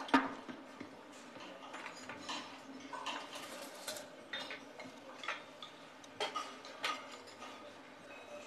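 Crockery and cutlery clinking and clattering as cups and dishes are handled at a kitchen serving counter: scattered sharp clinks, with a loud knock right at the start and two louder clinks about six and seven seconds in.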